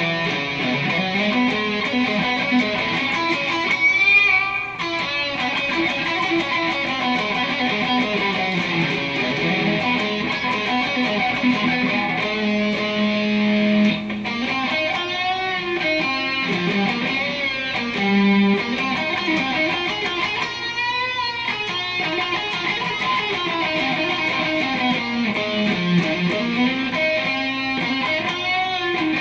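Fender Telecaster electric guitar played through a Marshall amp on a driven, non-clean preset. It plays a riff with held notes and wavering, vibrato-shaken bends.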